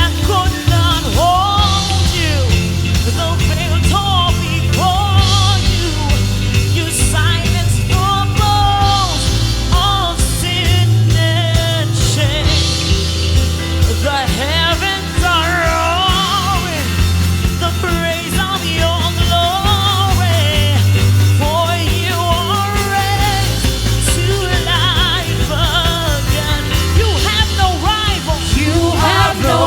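Live worship band music: a melodic lead line over sustained bass and drums.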